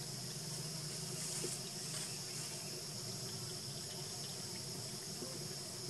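Steady high-pitched chirring of insects, with a faint low hum beneath.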